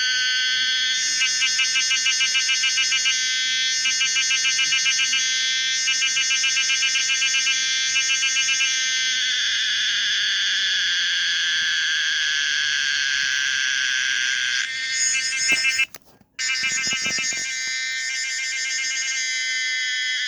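Homemade recreation of the song of the cicada Pomponia linearis: a loud, shrill, high buzzing drone. It alternates between stretches of rapid pulsing, about six pulses a second, and smooth steady buzzing, and cuts out briefly a little after the middle.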